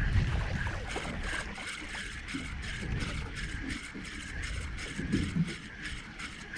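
Fishing reel being cranked steadily during a lure retrieve, a rhythmic whir of about three turns a second, over the low rumble of the boat.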